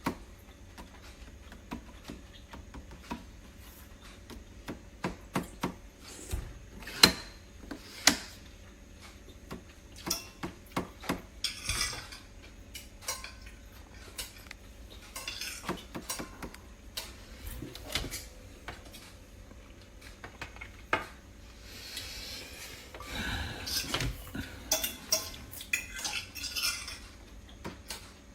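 Irregular clinks, clatters and knocks of hard kitchen items being handled, like dishes or utensils set down and moved about, with a few short scraping rustles.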